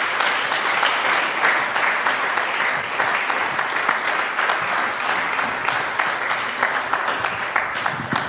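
Audience applauding steadily after a talk, the clapping beginning to fade near the end.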